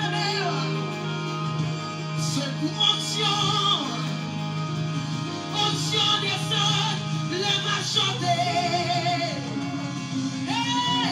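A woman singing a Haitian Creole worship song into a microphone, with long held, wavering notes over steady instrumental backing.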